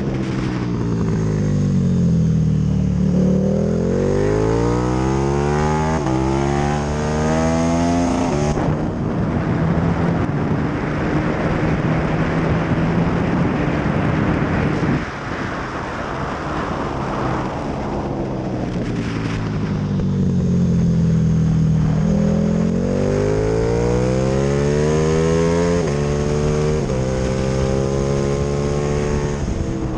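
KTM 1290 Super Duke R's 1301 cc V-twin engine at full racing pace: the revs fall into a corner, then climb hard with quick upshifts about six, seven and eight seconds in. It holds steady at high speed, the throttle shuts abruptly about halfway, and the revs fall again before climbing with two more quick upshifts near the end.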